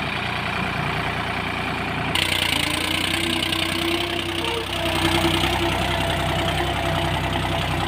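New Holland farm tractor's diesel engine running steadily under load as it hauls a loaded trailer through soft mud, getting a little louder and brighter about two seconds in.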